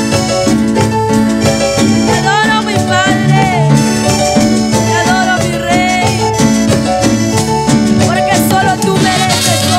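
Live band playing an upbeat Latin-style instrumental passage of an evangelical song: a steady repeating bass line, a metal güira scraping the rhythm, and a wavering lead melody on top.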